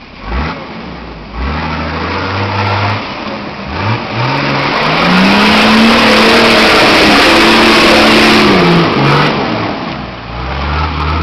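Nissan Patrol Y60's 2.8-litre straight-six turbo-diesel revving in several short rising bursts, then held at high revs for a few seconds before dropping and picking up again, as the truck fights through a deep mud rut with its wheels spinning.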